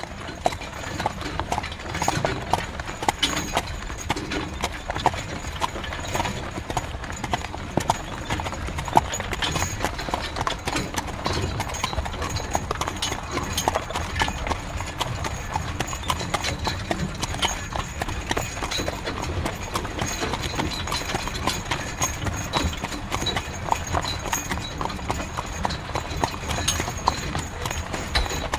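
Horse-drawn carriage: the horse's hooves clip-clopping steadily at a trot, over the continuous low rumble of the carriage's wooden wheels.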